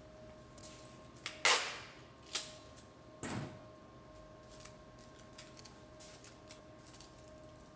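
Hands applying adhesive tape to laminating film: a loud rasping tear about a second and a half in, a click, and a shorter rasp a little later, then light ticks and rustles over a faint steady hum.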